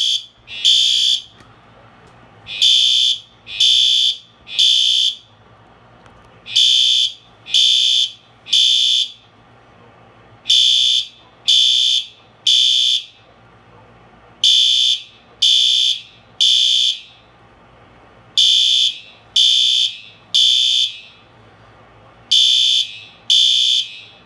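Fire alarm sounding the temporal-three evacuation pattern: three harsh half-second beeps, then a pause of about a second and a half, repeating about every four seconds.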